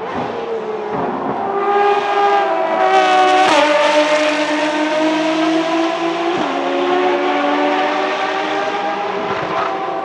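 Two Ferrari FXX K EVO V12 engines running hard as the cars pass close, the pitch dropping sharply about three and a half seconds in as they go by. Afterwards the engines' notes slide slowly lower as the cars move away through a corner.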